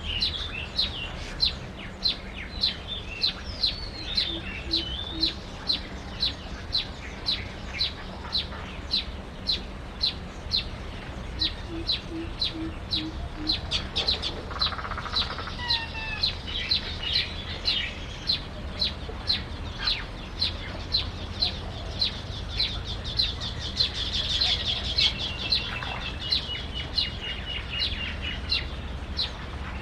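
A small bird chirping over and over, short sharp high chirps at about two a second, with other bird calls between them, including a brief trilling call in the second half. A few low clucking notes come twice in the first half.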